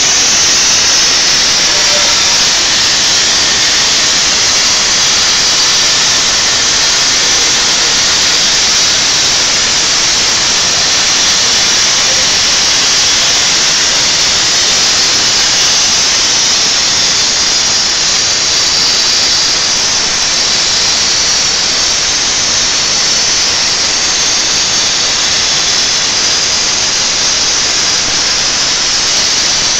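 CNC plasma torch cutting 10 mm steel plate: a loud, steady hiss from the plasma arc.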